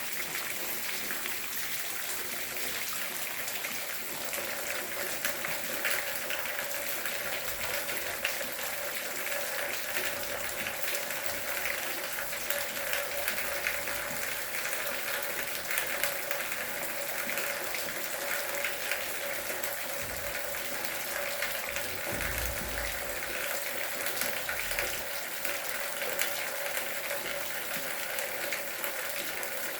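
Steady rain falling, an even hiss of many fine drops.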